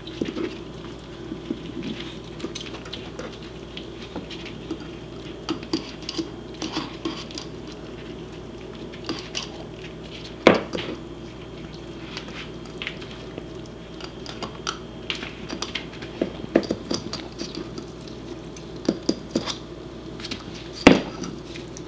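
A corgi working an egg with her mouth and dropping it onto the floor to crack it: a scatter of light taps and clicks of eggshell against floor and teeth, with two louder knocks, one about ten seconds in and one near the end.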